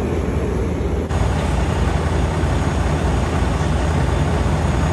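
Large truck engine idling: a steady low rumble.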